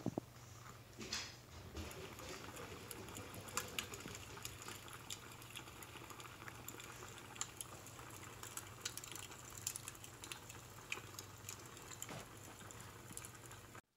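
Recorded wood fire crackling, a steady hiss dotted with frequent sharp pops, playing from a laptop. It cuts off abruptly just before the end.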